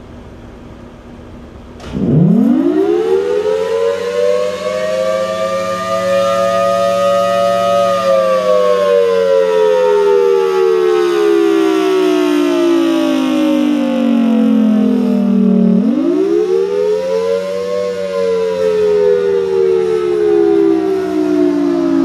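Thunderbolt 1000T outdoor warning siren starting up about two seconds in, its pitch rising quickly, then falling slowly for about eight seconds before rising again and falling once more.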